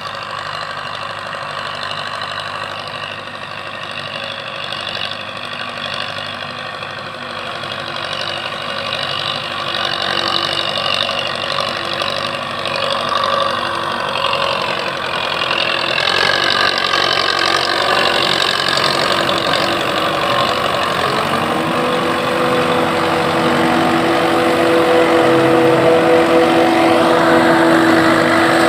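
Farm machinery engines running, led by a tractor pulling a trolley, and growing steadily louder as it draws near. In the later part a steady droning whine joins in.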